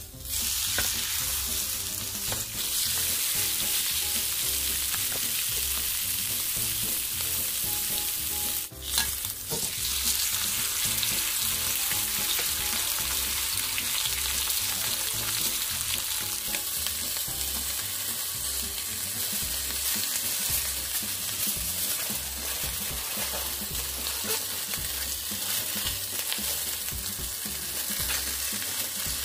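Netted pork roast sizzling steadily as it sears in hot oil in a grill pan. The sizzle dips briefly with a sharp knock about nine seconds in, then carries on.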